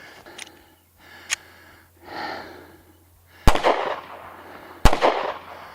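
Two gunshots about a second and a half apart, each with a short echo off the range, with heavy panting breaths in between from a shooter running a drill.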